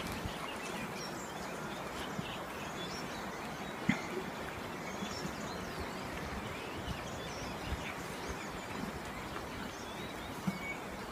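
Outdoor ambience: a steady background hiss with faint, scattered bird chirps, and a single knock about four seconds in.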